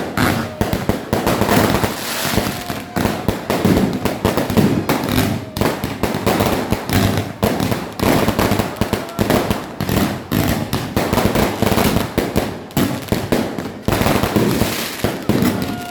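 Fireworks going off in a dense, continuous barrage: many sharp bangs and crackles in quick succession, overlapping with no pause.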